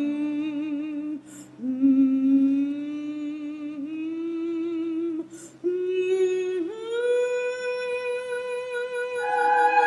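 A soprano voice humming a slow, soft melody in long held notes with vibrato, each phrase stepping higher, pausing briefly twice between phrases over a faint accompaniment. Near the end a louder, fuller chord swells in.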